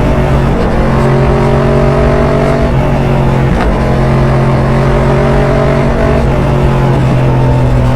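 Yamaha MT-07's parallel-twin engine through an Arrow aftermarket exhaust, running at steady cruising revs. The engine note breaks briefly about halfway through, then carries on at much the same pitch, shifting slightly again near the end.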